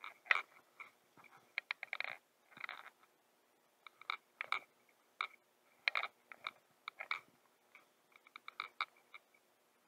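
Irregular scratchy clicks and rubbing of jacket fabric and fishing gear against a chest-mounted action camera, in uneven clusters with short gaps, as a baitcasting rod and reel are handled.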